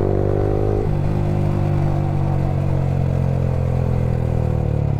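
Yamaha R15 V3's single-cylinder engine running through an aftermarket Akrapovic R9 exhaust while riding. The engine note changes about a second in, then slowly falls as the bike eases off.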